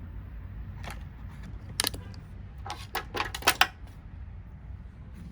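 Hard plastic vacuum-cleaner parts clicking and clattering as they are pried and pulled apart by hand, with a quick run of sharp clicks a little past the middle.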